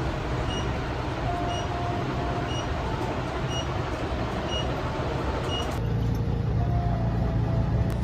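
Steady vehicle noise with a faint short beep about once a second and soft background music. About six seconds in it changes to a heavier motor rumble, the sound of a tuk-tuk ride.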